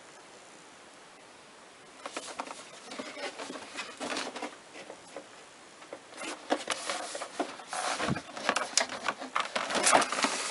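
A large cardboard advent calendar box being handled and turned around: irregular rustling, scraping and tapping of hands and fingernails on the cardboard, starting about two seconds in and getting busier and louder toward the end.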